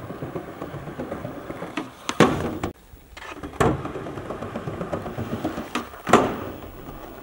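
Sharp knocks of feet landing on the metal roof of an old train car, over a steady noise; the loudest knock comes about six seconds in, as a person lands a jump across the gap between two cars.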